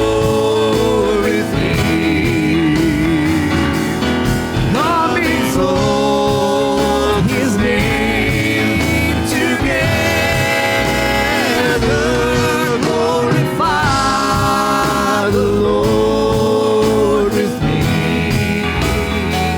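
Live gospel worship music: a band plays an instrumental passage, with a lead melody of held, wavering notes over a steady backing.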